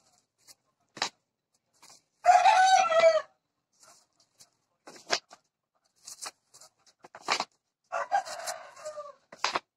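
A rooster crowing twice, loud about two seconds in and fainter near the end, over a few scattered clicks and rustles from plastic-wrapped candle packs being shifted in a cardboard box.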